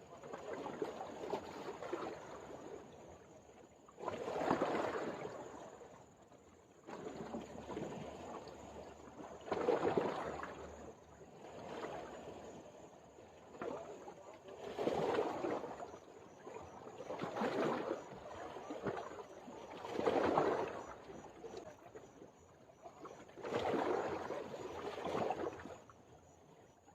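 Water washing in repeated surges, swelling and ebbing about every two to three seconds, like small waves lapping.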